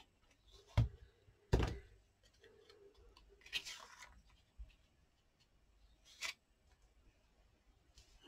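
A few scattered thunks and a brief rustle of paper and tools being handled on a craft table.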